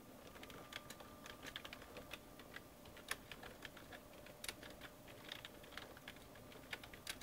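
Faint typing on a computer keyboard: short, irregular keystrokes in scattered runs.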